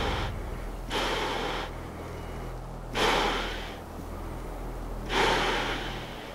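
Heavy, hissing breaths through a gas mask, four breaths a second or two apart, over a low steady hum.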